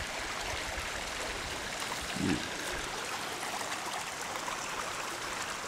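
Small forest stream running over stones, a steady rushing trickle, with a brief low hum about two seconds in.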